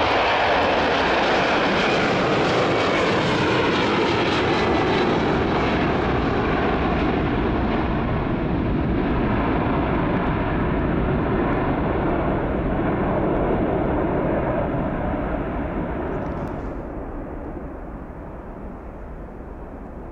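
Jet engines of a United Boeing 767 at takeoff thrust as it lifts off and climbs away: a loud, steady roar that gradually loses its hiss, then fades over the last few seconds as the aircraft recedes.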